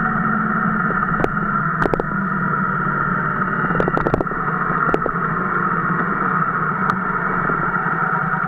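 Motorcycle engine running steadily on the road, a constant drone with a few short clicks scattered through it.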